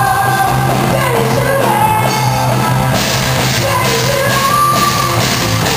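Live rock band playing loud: a drum kit with cymbal hits about three seconds in, under a wavering melody line.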